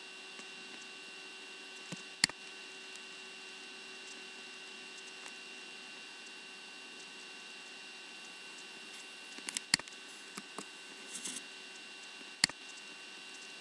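Steady electrical hum with a few thin high steady tones, broken by sharp clicks of a computer mouse and keyboard: one about two seconds in, a small cluster near ten seconds, and one near the end.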